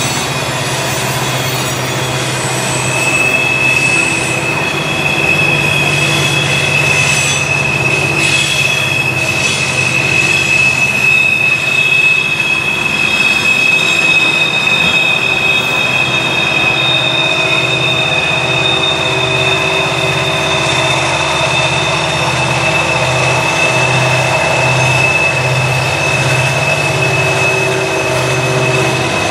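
A loaded freight train rolls through a tight curve, its wheel flanges squealing against the rail in a steady high tone that sets in a few seconds in, over the rumble of the wheels. In the second half a pulsing low throb grows as the rear-end helper diesel locomotives come up.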